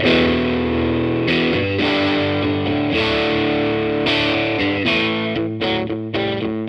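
Electric guitar, a Warmoth Strat, played through a Laney CUB-Super 12 15-watt all-tube combo amp with its gain being turned up. Chords are struck and left to ring about every second and a half, then strummed more quickly near the end. The tone is just starting to break up into light overdrive.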